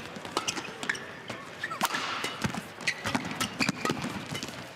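Badminton doubles rally: rackets hitting the shuttlecock in a quick run of sharp cracks, with shoes squeaking and feet thudding on the court mat.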